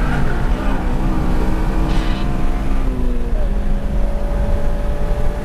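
Honda Civic Si's K20Z3 four-cylinder engine heard from inside the cabin while lapping, its note shifting up and down with the throttle, over a constant road and wind rumble. A steady whine holds from about halfway through.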